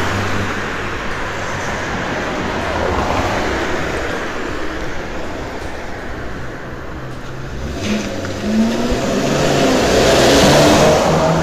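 Street traffic noise: a steady hum of road traffic, with a car passing close by and growing loudest about ten seconds in.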